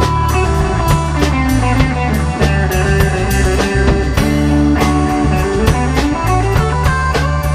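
A rock band playing an instrumental jam with electric guitar, bass guitar, drum kit and keyboards. The bass and drums keep a steady groove under held and picked guitar and keyboard notes, with no singing.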